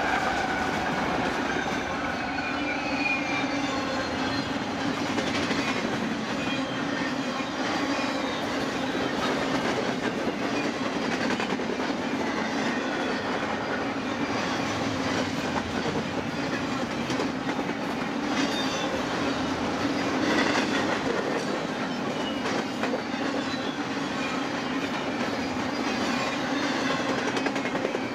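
BNSF double-stack intermodal freight train passing close by. The last of its diesel locomotives rolls past at the start, then a long run of container well cars with a steady rumble and clatter of steel wheels on rail. Faint high wheel squeal comes and goes.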